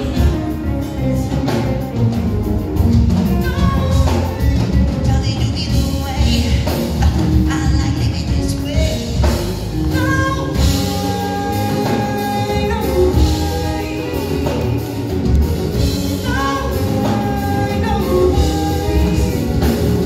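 Live band music: drum kit, electric guitar and electric bass playing together, with a singer singing into a microphone over the band through the hall's PA.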